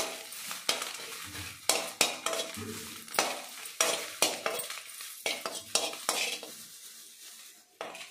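A spatula scrapes and clinks against an aluminium kadai, stirring dry red chillies that are frying in a little oil, with a faint sizzle. The strokes come about twice a second and stop about three-quarters of the way through, with one last stroke near the end.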